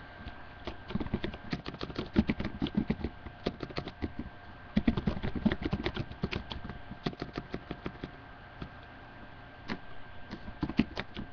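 Typing on a computer keyboard: rapid key clicks in two main runs with a pause between them, then a few more keystrokes near the end, over a faint steady hum.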